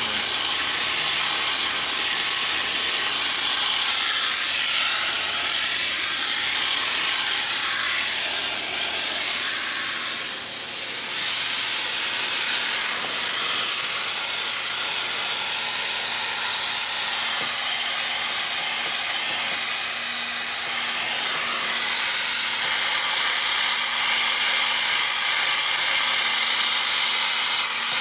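Water from a garden-hose spray wand hitting a side-by-side's radiator core, rinsing the coil cleaner and mud out of the fins: a steady hiss of spray.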